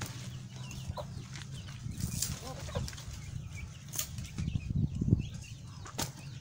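Chickens clucking repeatedly, with sharp knocks and low rustling from a woven bamboo basket being set down and handled; the loudest rustling comes about five seconds in.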